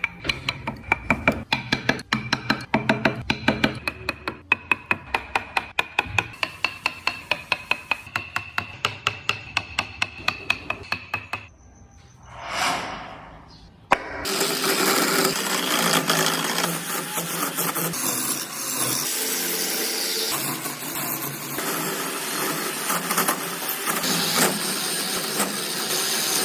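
Woodworking tools on wood: rapid, even tapping at about four to five strokes a second for the first half, then a short whoosh that swells and fades. After that a steady, dense power-tool noise runs on through the rest.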